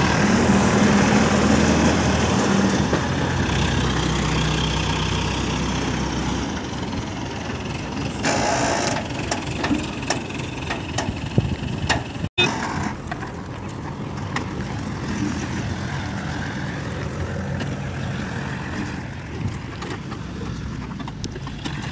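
Diesel engine of a hydra pick-and-carry crane running under load, with rattles and knocks from the moving machine. It is loudest in the first few seconds, and after a sudden cut about halfway through it settles to a steadier, quieter run.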